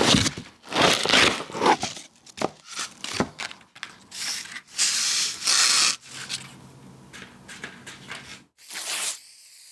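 Paper being folded and creased by hand into an origami model: a run of crinkling, rubbing strokes of varied length, the longest lasting about two seconds about halfway through.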